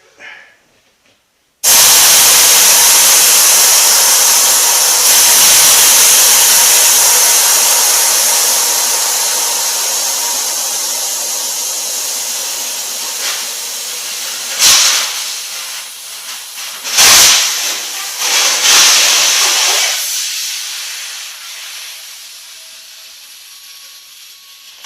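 High-pressure air bled off from a Tuxing four-stage compressor after filling a tank: a loud hiss that starts suddenly about two seconds in and slowly weakens, with a few short louder spurts past the middle, before tapering off near the end.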